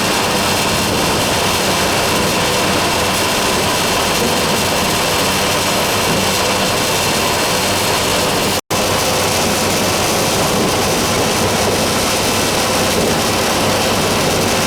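Steady road and engine noise inside a moving vehicle's cabin, a loud even rush with a faint low hum. It drops out for a split second a little past the middle.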